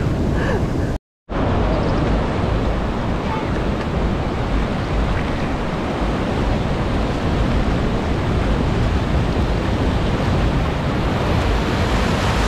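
Ocean surf and wind on the microphone: a steady rushing noise, heaviest in the low end, that cuts out completely for a moment about a second in.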